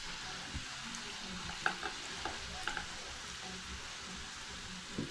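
Hot frying pan of diced potatoes sizzling faintly and steadily, with a few light taps of a spatula against the pan.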